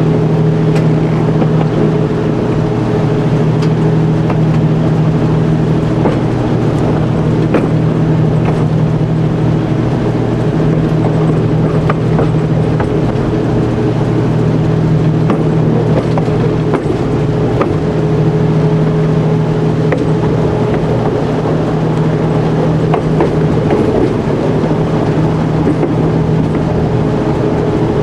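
Motor car M.340 of a vintage train running at steady speed, heard from its cab: a constant drone from the running gear with a couple of steady pitched tones over a broad rumble. Scattered short clicks come from the wheels passing over rail joints and points.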